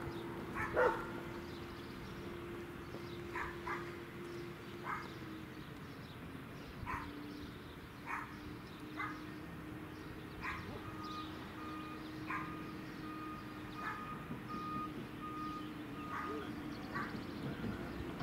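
A dog barking at intervals of a second or two, over a steady low hum. A faint run of evenly spaced beeps sounds for a few seconds past the middle.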